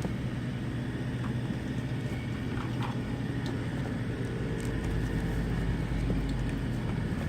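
Steady low droning hum with a few faint light clicks, and a slight rise in level about two-thirds of the way through.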